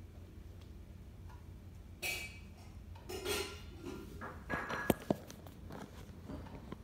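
Two kittens scuffling in play on a wooden floor and a fleece blanket: bursts of rustling and scrabbling, then a run of light knocks with two sharper knocks about five seconds in.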